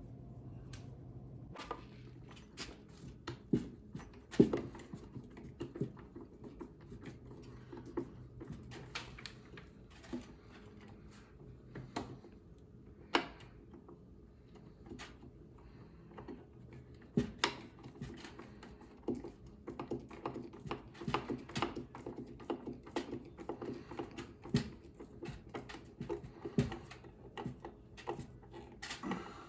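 Irregular light clicks, taps and knocks of hand work installing cabinet handles: screws, handle hardware and hand tools handled against the wooden cabinets, over a faint steady low hum.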